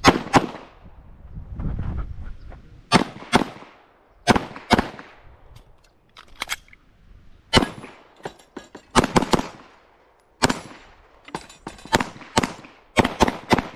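Handgun fired in rapid succession during an IPSC stage: sharp shots, many in quick pairs (double taps), with short pauses between groups as the shooter moves between targets.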